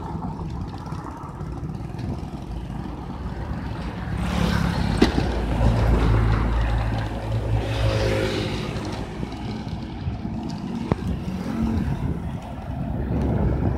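Wind rushing over the microphone of a moving bicycle, with a motor vehicle's engine hum rising and fading as it passes about four to nine seconds in. Two sharp ticks, about five and eleven seconds in.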